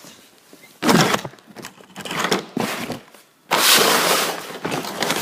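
Loud rustling and clattering handling noise. There is a short burst about a second in and a longer stretch starting about three and a half seconds in.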